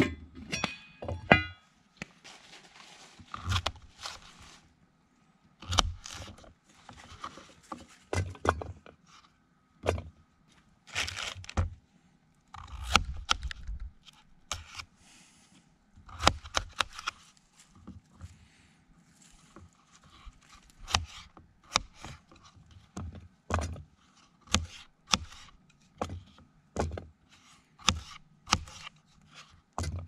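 Red potatoes being cut with a knife on a small cutting board and the chunks dropped into a steel camp pot: an irregular run of sharp knocks and thunks. Near the start a metal pot lid clinks and rings briefly.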